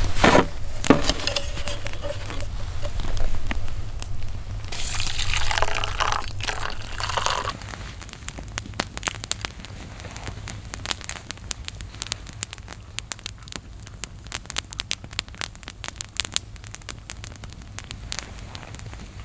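Hot water poured from a small metal pot into a metal mug. From about eight seconds in, a wood campfire crackling with many sharp pops.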